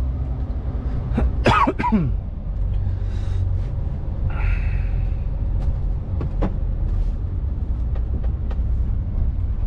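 Inside an articulated lorry's cab, the diesel engine rumbles low and steady as the truck creeps through slow traffic. About a second and a half in there is a brief vocal sound from the driver, like a cough or throat clearing, and around four and a half seconds in a short hiss.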